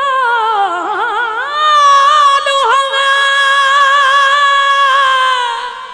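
Qawwal's solo male voice singing a long, high, drawn-out note. The pitch dips and wavers with ornaments in the first second or so, then rises and is held steady for about four seconds, with a quick break near the middle. The voice fades out at the end, over a faint harmonium underneath.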